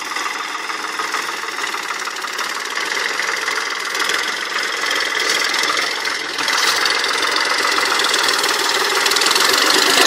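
New Holland 3600-2 tractor's diesel engine running as the tractor drives over heaped paddy straw to thresh the rice grain. It grows louder about six and a half seconds in as the tractor comes close.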